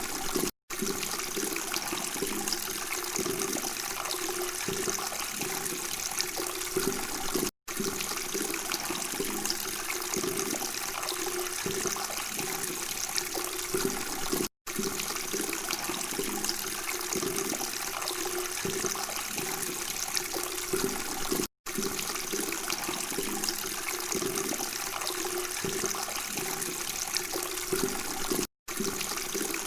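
Water flowing and babbling steadily, cutting out for a split second about every seven seconds.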